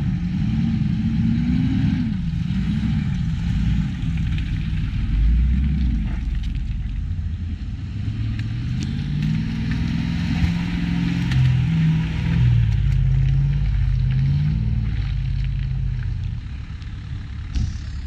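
Land Rover engine driven off-road, its revs rising and falling again and again as the throttle is worked.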